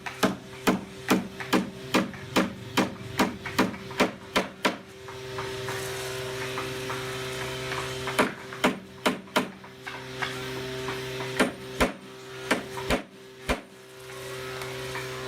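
Hammer striking wood in an even run of blows, about two or three a second. It stops for a few seconds, then comes back in two shorter runs. A steady machine hum carries on underneath.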